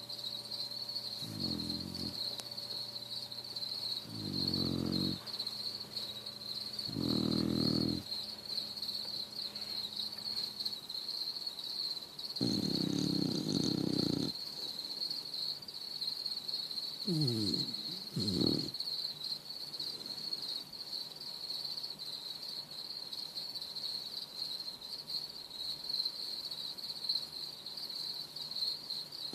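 Beagle snoring in its sleep: rattling snores a few seconds apart, a longer one about halfway through, then two short snorts, and no snores for the last ten seconds. A steady high-pitched chirring hum runs underneath throughout.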